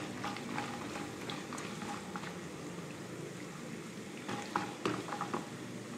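Chopped coconut pieces frying in hot coconut oil: a steady bubbling sizzle with small crackles. A few light strokes of a wooden spatula against the pan come in the second half.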